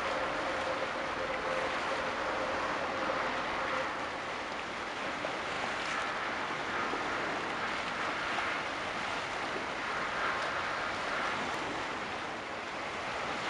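Steady wash of choppy sea water in a strait as a large container ship sails past, with a faint steady hum in the first few seconds.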